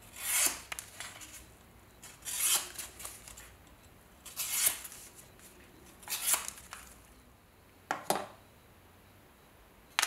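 Pocket knife blade slicing through a thin strip of paper in a sharpness test, a short rasping cut about every two seconds, four times. A shorter, sharper sound about eight seconds in.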